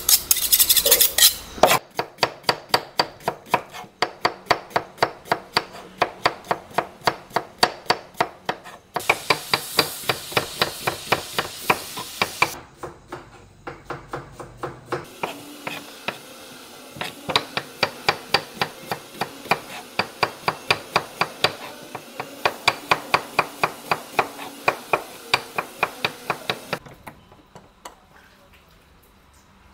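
Kitchen knife slicing onions on a cutting board: fast, even knife strokes, several a second, briefly easing off near the middle and stopping near the end. It opens with about two seconds of a knife being honed on a sharpening steel.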